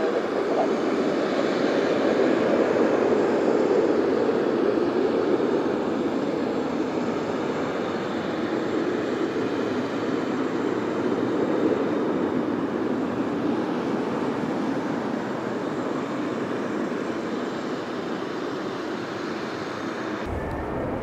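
Embraer KC-390's twin IAE V2500 turbofan engines as the jet climbs away after takeoff: a steady, deep jet engine noise, loudest a few seconds in, then slowly fading as the aircraft recedes. The sound changes abruptly about a second before the end.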